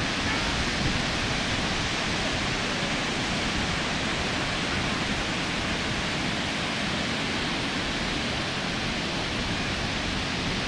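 Ocean surf at the beach, a steady, even wash of noise with no distinct wave breaks.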